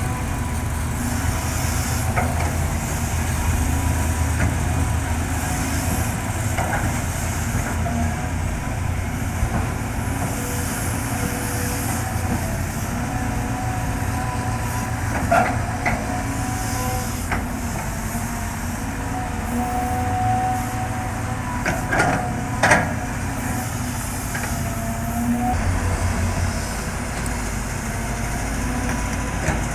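Caterpillar excavator's diesel engine running steadily while it works, with a high hiss over it. A few sharp knocks stand out about 15 seconds in and twice near 22 seconds.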